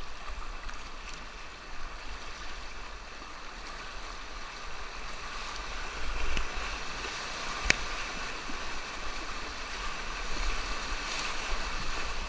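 Rushing whitewater of a river rapid, a steady hiss of water with a low rumble beneath it, broken by a single sharp knock about two-thirds of the way through.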